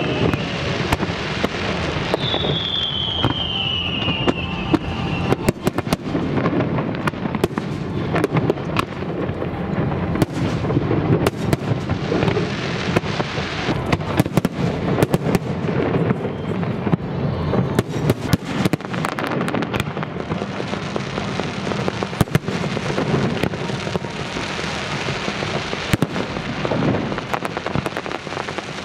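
A fireworks display: a continuous barrage of bangs and crackling from shells and rising comets bursting, with a falling whistle a couple of seconds in.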